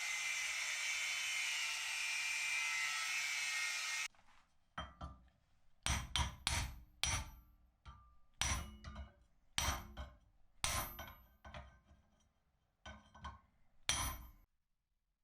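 For about four seconds a steady hissing noise runs, then stops abruptly. After that comes a series of about a dozen sharp hammer blows on steel at uneven spacing, several with a short, high metallic ring.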